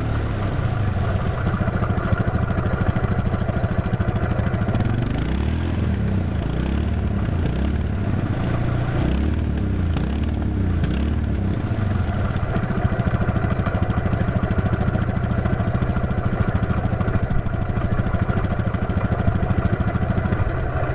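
Yamaha Grizzly 700 ATV's single-cylinder engine running under load as the stuck quad spins its wheels in deep mud. About midway it revs up and down several times in quick succession, then holds a steadier pitch.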